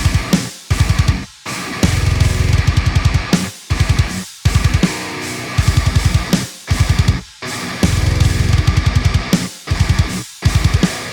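Heavily distorted electric guitar playing a palm-muted metal riff of fast low chugs over a drum backing with rapid kick drum. The riff stops dead for brief gaps and repeats about every three seconds.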